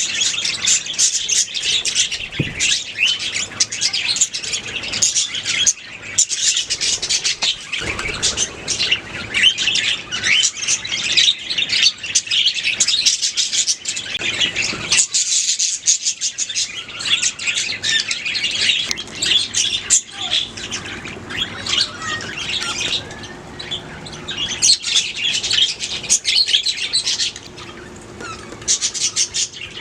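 Several budgerigars chirping and chattering together, a dense stream of overlapping high chirps.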